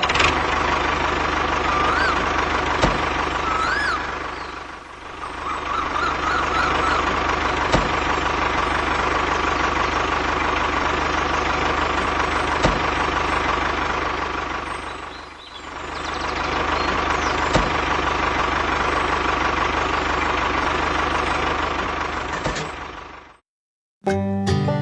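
Tractor engine running steadily. It dips in level twice and cuts off abruptly just before the end, when plucked-string music starts.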